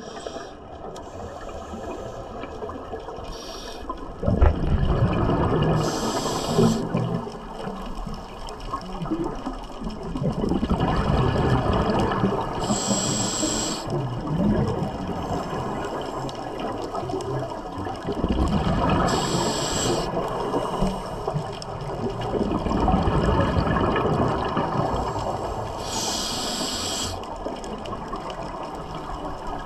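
Scuba regulator breathing underwater: a short hiss of inhaled air about every seven seconds, four times, between longer bubbling rushes of exhaled air.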